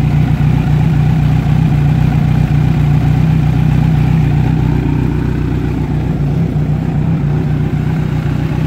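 Kawasaki Z900's 948 cc inline-four engine idling steadily, heard close to the engine's left side.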